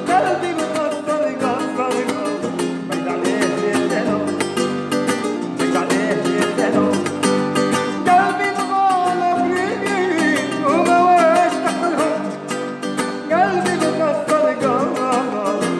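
Background music: an Algerian raï song with plucked guitar and a wavering sung melody.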